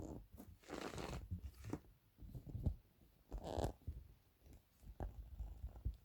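Handling noise from hands working on the subwoofer parts: two short scraping, rustling sounds, about a second in and again past the middle, among a few soft low knocks.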